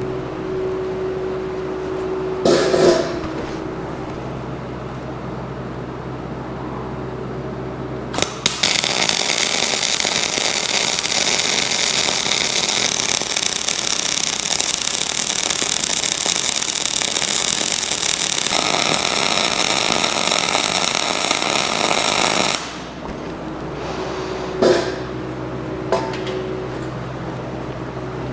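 Electric arc welding: a loud, steady crackling hiss of the arc for about fourteen seconds, starting about eight seconds in and cutting off suddenly, as a bead is laid to build up the worn section of a preheated steel rerailing frog.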